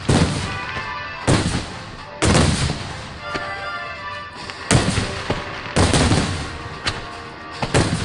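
Aerial fireworks shells bursting in quick succession: about half a dozen loud bangs, each followed by a long rolling echo.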